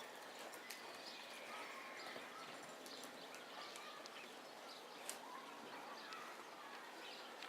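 Faint outdoor background with scattered short bird chirps, and a single sharp click about five seconds in.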